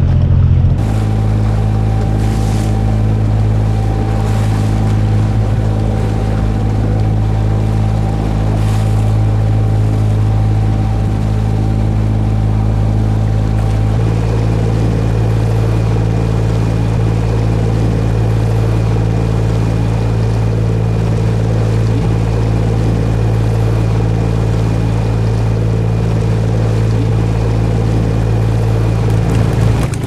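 Fishing boat's engine running steadily, its note shifting slightly about halfway through.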